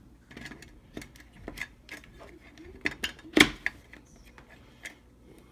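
Irregular clicks and knocks of an 18650 lithium-ion cell being pressed into its battery holder inside a metal Altoids tin, the loudest knock about three and a half seconds in.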